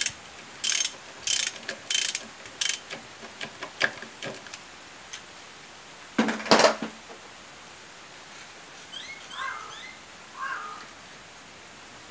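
Ratchet wrench clicking in short bursts as the clutch spring bolts on a Honda CM125T clutch are tightened, dying away after about four seconds. About six seconds in comes one louder metallic clatter.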